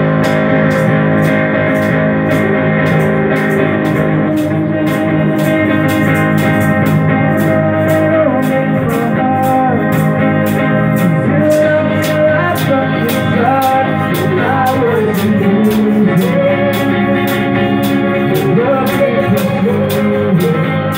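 Instrumental introduction of a worship song: sustained chords with guitar and a steady ticking beat. A gliding melody line comes in about eight seconds in.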